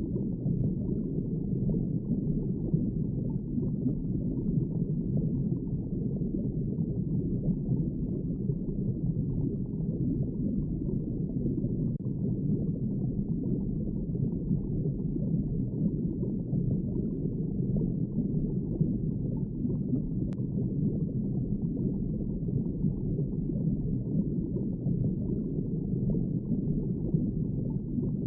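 Underwater ambience: a steady, muffled wash of water noise, low and dull, with nothing bright above it.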